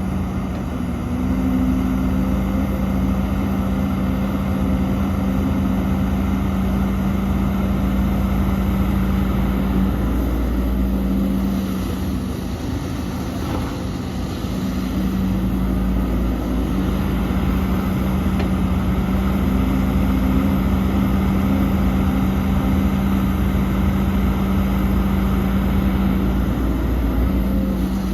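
Heavy diesel engine of earthmoving machinery running steadily with a deep rumble. It eases off for a few seconds about midway, then picks up again.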